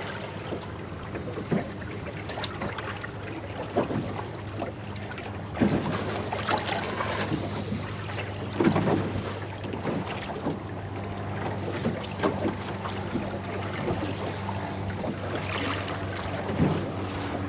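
Wind on the microphone and water moving around a small boat, with a faint steady low hum and scattered knocks and clicks.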